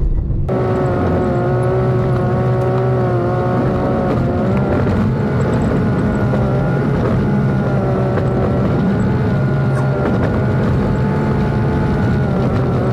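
Old Jeep Cherokee (XJ) driving up a dirt road, heard from inside the cab: the engine runs at a steady, even pitch that wavers slightly, over tyre and road rumble.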